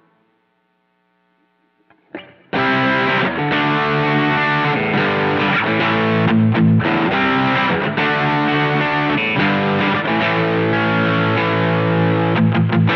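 Electric guitar played through an Ibanez Tube Screamer Mini overdrive pedal, switched on: after about two seconds of silence, a loud overdriven passage starts and carries on without a break.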